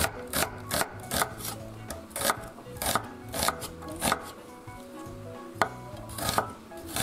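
Kitchen knife slicing a halved onion on a wooden cutting board, each stroke ending in a sharp knock on the board, about two to three cuts a second, with a pause of about a second just after the middle.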